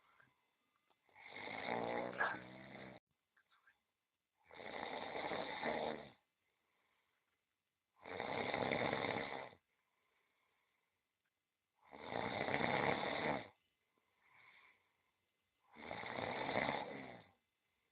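Domestic cat snoring in its sleep: five snores, each about one and a half to two seconds long, coming roughly every four seconds.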